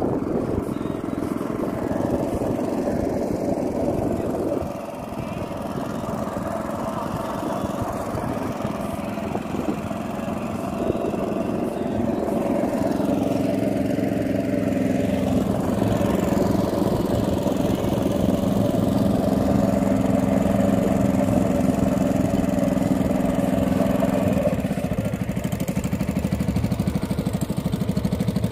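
Small stationary engine of a wooden river boat running steadily under way. It eases slightly about five seconds in and runs stronger again from about twelve seconds, over a wash of wind and water noise.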